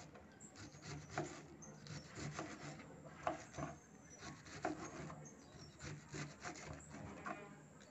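Kitchen knife slicing through a hard raw cabbage held in the hand: a run of faint, irregular crunching cuts, roughly three a second.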